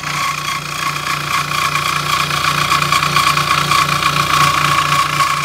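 Electric scroll saw running steadily, its thin reciprocating blade cutting through a wooden board, with an even hum and a fast, regular chatter.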